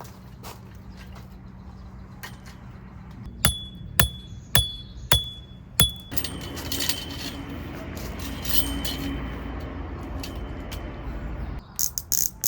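Five sharp, ringing clinks, evenly spaced at about two a second, followed by several seconds of rustling noise and a few quick clicks near the end.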